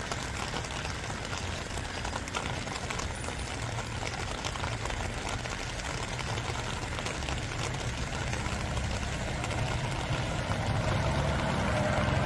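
Steady rain falling, an even hiss, with a low rumble underneath that grows louder in the second half.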